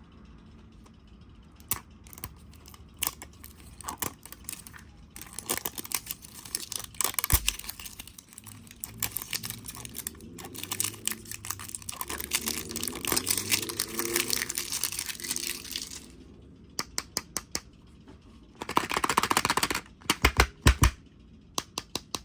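Toy packaging being unwrapped by hand: plastic and paper crinkling and tearing, with many small clicks and taps, and a louder tearing rustle near the end.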